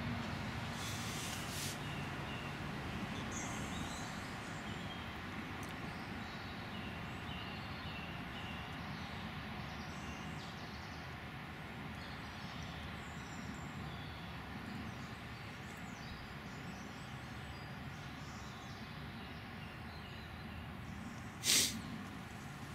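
Steady low outdoor background rumble with faint, scattered bird chirps, and a single sharp knock near the end.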